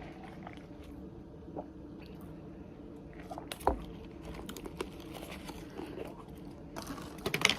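Close-up eating sounds: chewing and crunching on takeout wings and fries, with scattered sharp clicks and a cluster of clicks and rustles near the end from handling the food and containers, over a steady low hum.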